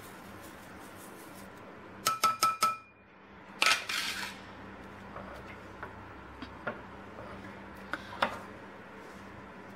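Small stainless steel bowl clinking about five times in quick succession with a brief metallic ring, as it is tapped to shake out the last chia seeds. About four seconds in comes a louder clatter of dishware being set down, then a few light knocks.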